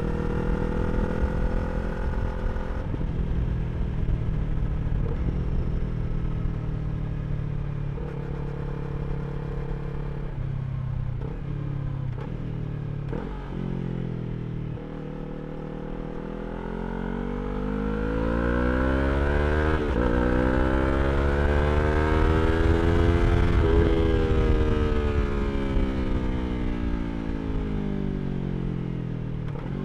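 A 2023 Yamaha R3's parallel-twin engine running through an Akrapovič slip-on exhaust. It holds fairly steady revs with a few sudden pitch steps in the first half, then the revs climb in one long rise to a peak about two-thirds of the way in and fall away again toward the end.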